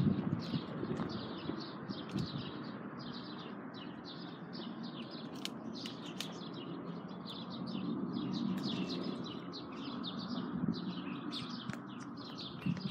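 Small birds chirping continuously, short high chirps coming several times a second, over a steady low rumble that swells a little about eight to nine seconds in.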